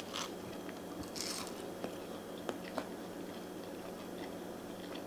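A person biting into and chewing a piece of fried green banana: a few soft crunches and small clicks, with a faint steady room hum underneath.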